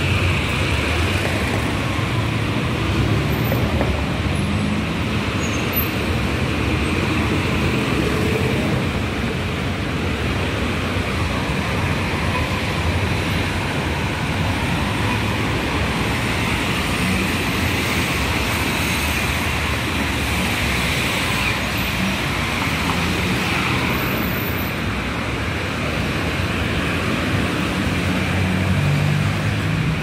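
Steady city street traffic noise: cars driving past on the road alongside the pavement.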